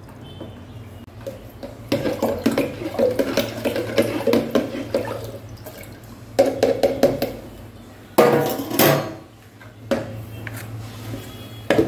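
Steel spoon stirring syrup and water in a plastic jug: rapid clinking and scraping against the jug's sides with sloshing liquid, in several bouts, the loudest about eight seconds in.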